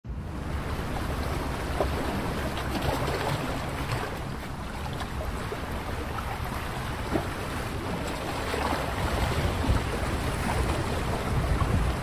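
Wind buffeting the microphone outdoors: a steady low rumble and hiss, with a few faint ticks.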